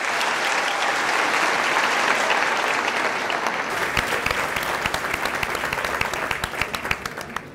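Large seated audience applauding: a dense, even wash of clapping that breaks up about halfway through into separate, scattered claps and dies away near the end.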